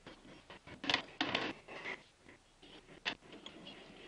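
Plywood donut jig with carriage bolts being handled and adjusted on a stopped wood lathe: a string of sharp clicks and knocks with a short rattling scrape about a second in.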